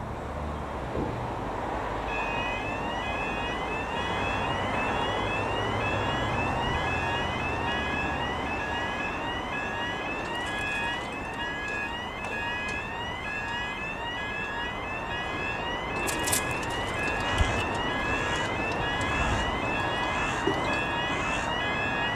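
Level crossing audible warning alarm sounding: a sweeping electronic tone repeating about once a second, starting about two seconds in, while the road lights come on for an approaching train. Road traffic runs underneath.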